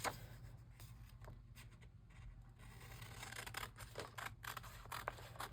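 Scissors cutting paper: one click at the start, then a run of short, quick snips over the last few seconds, over a steady low hum.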